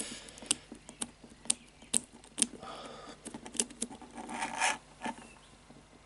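Numbered metal wheels of an Abus 3406C combination cable lock being turned by hand, clicking irregularly as the dials step from position to position. A brief stretch of scraping and rubbing comes about four and a half seconds in as the fingers work the lock.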